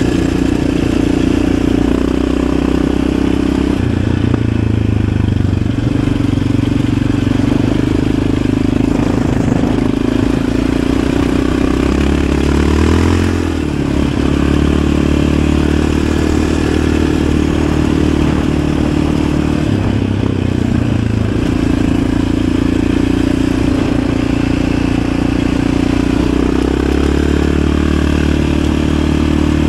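Yamaha Raptor 700 ATV's single-cylinder four-stroke engine running under way. Its pitch holds steady in stretches and shifts with throttle and gear changes, dipping and climbing again about halfway through.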